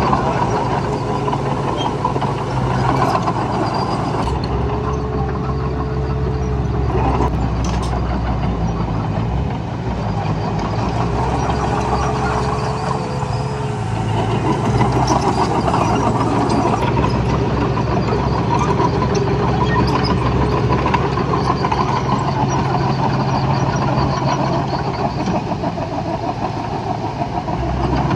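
Heavy diesel engine of earthmoving machinery running steadily under load, with a faint whine that comes and goes a few times.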